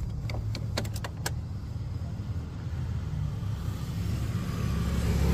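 Daelim Q3 scooter engine running at idle, a steady low hum that grows a little louder near the end, with several sharp clicks in the first second or so.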